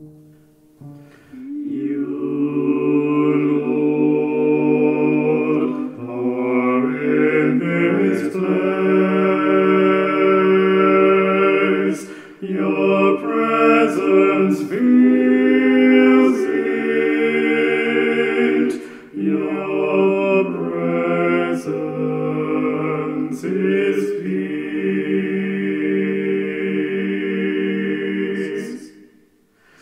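A man singing a slow, chant-like worship chorus in long held phrases, with short breaks between the phrases.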